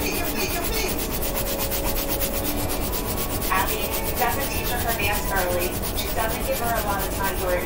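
A Crayola Twistables Silly Scents crayon rubbed back and forth on sketchbook paper in quick, even strokes, colouring in a large area. Faint voices can be heard in the background.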